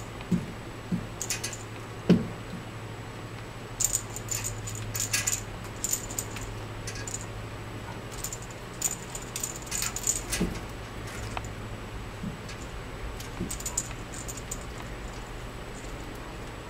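Small metallic jingling in short bursts as kittens bat at and tug on toys dangling from strings, with a few soft thumps of paws landing on the floor. A steady low hum runs underneath.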